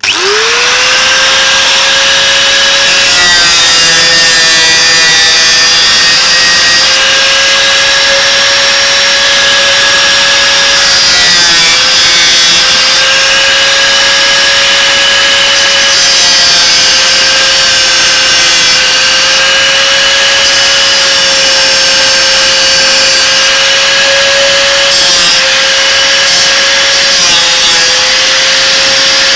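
Angle grinder with a cut-off wheel spinning up and cutting through metal: a loud, steady high whine that sags briefly under load a few times.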